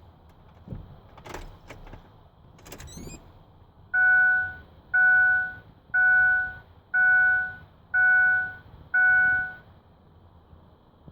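2006 Ford F-150's warning chime beeping six times, about once a second, each beep a short steady tone at the same pitch, sounding on a key-on attempt while the truck won't crank or start. A few faint clicks come in the first three seconds, before the beeps.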